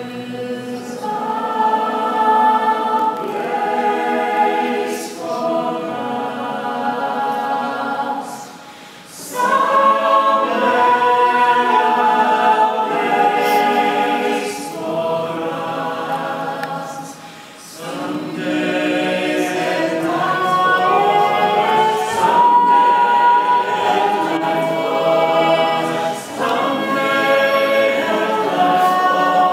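Chorus of voices singing a slow choral passage in long held phrases, with little or no instrumental backing. The singing breaks off briefly about nine and again about eighteen seconds in.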